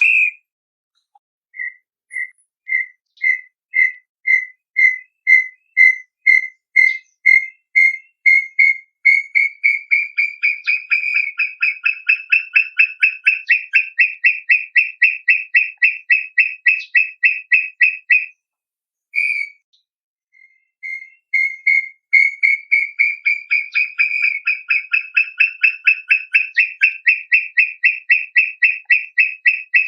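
Brown tinamou singing: a series of clear whistled notes that start slow and well spaced, then speed up and rise slightly in pitch into a fast run. It breaks off about two-thirds through, a single note follows, and a second rising, accelerating series begins.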